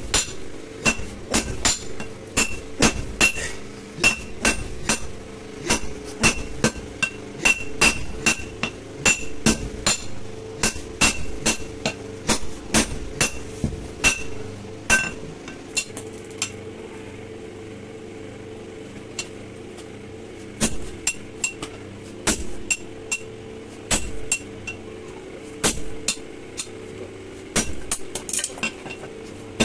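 Hand hammer striking red-hot steel on a railway-rail anvil while forging a blade: sharp, ringing metal strikes about two a second. The strikes thin out for a few seconds past the halfway point, then resume.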